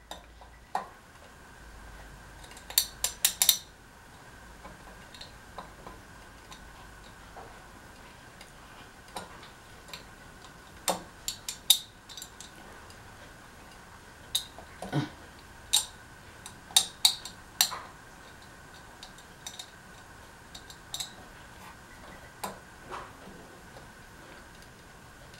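Scattered sharp metallic clicks and clinks of ceiling fan hardware being handled while the canopy is fitted, with a quick run of four or five clicks about three seconds in and more scattered through the middle, over a faint steady high tone.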